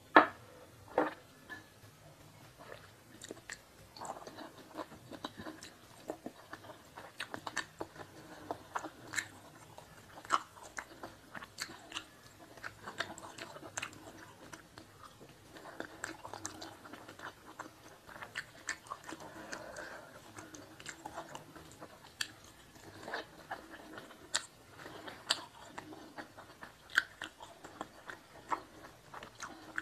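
Close-miked chewing and biting of rice and sweet-and-sour fish with pineapple, with many sharp mouth clicks throughout and a louder knock right at the start.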